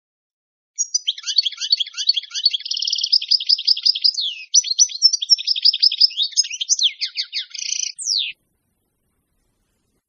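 European goldfinch singing: a fast, unbroken run of twittering chirps and trills, ending in a quick falling note about eight seconds in before it stops.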